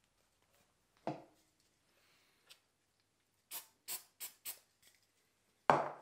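Workbench handling sounds: a knock about a second in, four quick sharp sounds a little after the halfway point, and a louder thump near the end.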